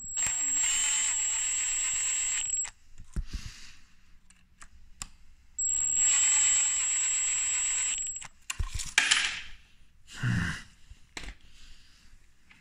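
Milwaukee cordless driver running in the bolts that hold the rewired mechatronics unit in a BMW seven-speed dual-clutch gearbox: two runs of about two and a half seconds each with a steady high whine. Then a few short metallic clinks and knocks.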